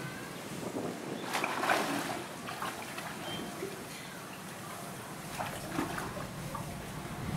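Water splashing and sloshing around South American tapirs wading in a shallow pool, the loudest splashes about a second and a half in, with a few short smaller ones later.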